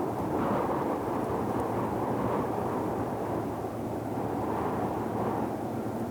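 Deep ocean noise track: a steady, dark, low hiss that swells and eases gently every couple of seconds.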